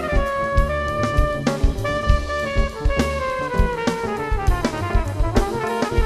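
Live jazz band: a trumpet plays a long phrase that slides slowly downward, over a drum kit struck steadily and the band beneath.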